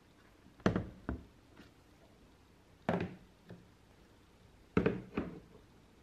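Objects being set down on a wooden desktop: three pairs of sharp knocks and clunks, about a second in, near three seconds and near five seconds.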